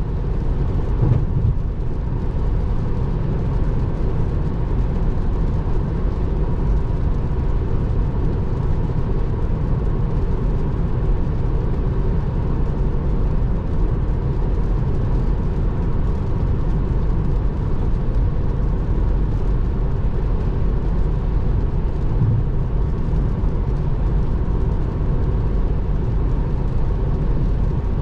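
Steady, low road and tyre noise inside a Tesla Model 3's cabin at highway speed on a rain-wet road, with no engine note from the electric car.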